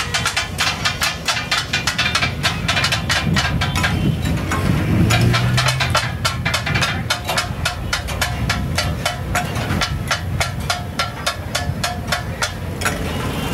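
Two metal spatulas striking a large iron griddle in quick succession as katakat offal is chopped and tossed: a rapid metallic clatter of several strikes a second, easing briefly about four seconds in.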